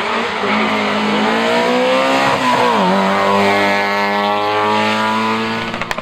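Historic rally car's engine accelerating hard out of a corner, its pitch climbing, dipping sharply about two and a half seconds in, then climbing again.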